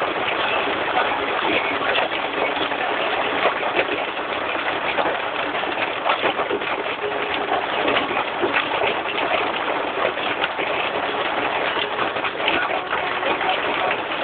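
Heavy rain and hail falling: a dense, steady rush of drops with many sharp ticks of impacts all through it.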